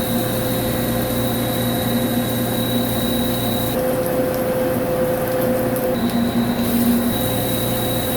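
CNC vertical lathe running steadily with a high whine over a low hum; the tone shifts slightly about four and six seconds in.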